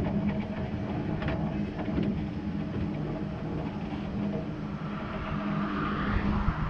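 A 1909 0-6-0WT narrow-gauge steam tank locomotive running along the track, heard from the front of the engine as a steady low rumble with a few sharp clicks in the first two seconds. A car passing on the road alongside adds a rising hiss about six seconds in.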